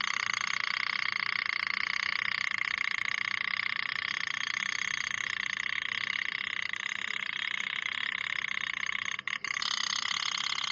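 Toy pop-pop (otok-otok) steam boat engine running, its heated boiler's thin metal diaphragm popping in a fast, steady, even rattle. The rattle drops out twice for an instant near the end.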